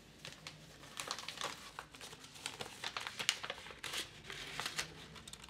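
Paper envelope crinkling and rustling as hands open it, in a run of irregular crackles that starts about a second in.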